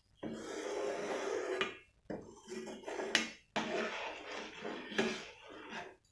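Kitchen utensils scraping and clinking against cookware in three bursts, with a few sharp clinks.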